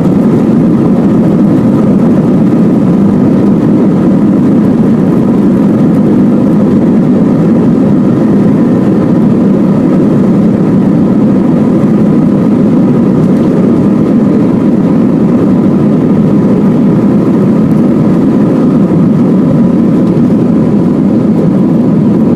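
Airbus A321 turbofan engines running at takeoff thrust, heard from inside the passenger cabin: a loud, steady rumble with a faint steady whine on top.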